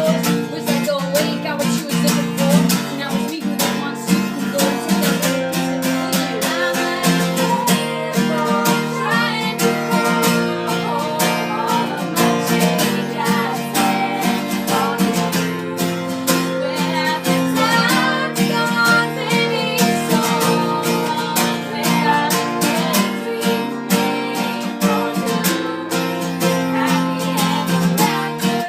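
Music: a strummed acoustic guitar playing a steady rhythm.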